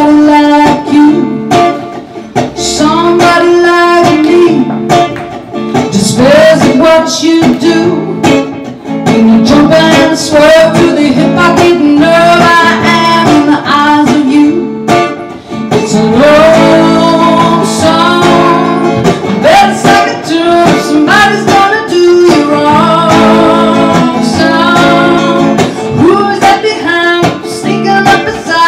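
A woman singing a song while playing a solid-body electric guitar.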